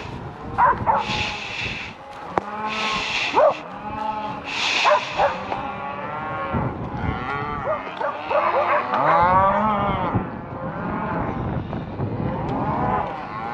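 A herd of cows and calves bawling and mooing, many calls overlapping, some low and some higher-pitched. A few short bursts of hiss come in the first five seconds.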